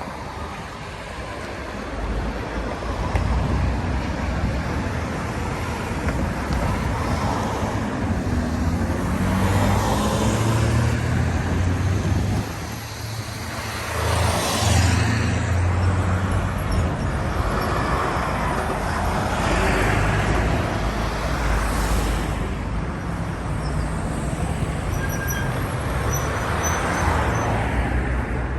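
Road traffic at a level crossing: a string of cars and other motor vehicles passing one after another, each swelling and fading, over a steady low engine rumble.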